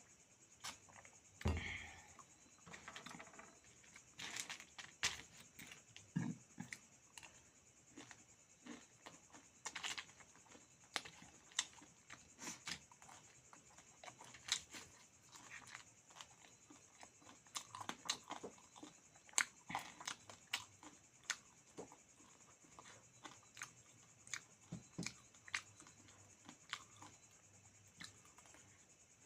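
Close-up eating: irregular wet smacks, tearing and crunching as someone chews meat and beaten rice, many short sharp clicks scattered throughout.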